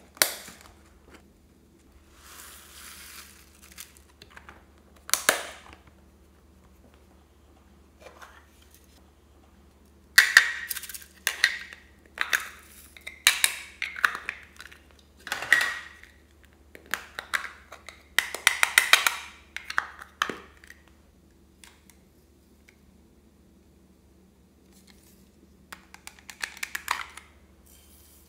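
Plastic makeup palettes and cases being handled, clicked and pried open, with pressed makeup crumbled into a glass bowl, giving separate bursts of clicks and crackles that are busiest through the middle. Short clinks of plastic and product against the glass bowl are mixed in.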